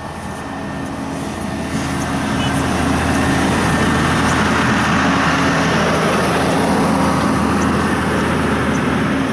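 Coach bus running on its diesel engine as it drives slowly past close by. A steady low engine hum grows louder over the first few seconds as the bus comes alongside, then holds.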